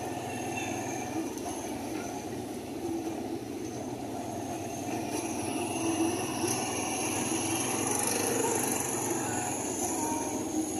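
Motorcycle riding noise in traffic: engine and road noise with steady high-pitched whines that drift slowly in pitch.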